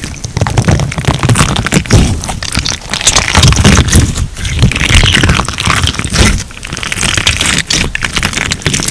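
Crunch slime being kneaded and pressed by hand: a dense, irregular crackling and popping of its crunchy bits.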